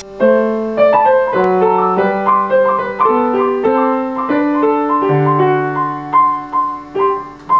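Solo piano music: a steady melody of single notes, roughly two a second, over held lower notes.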